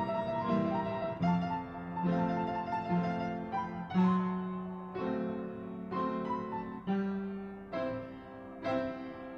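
Keyboard playing slow chords, one struck about once a second, each ringing and fading before the next.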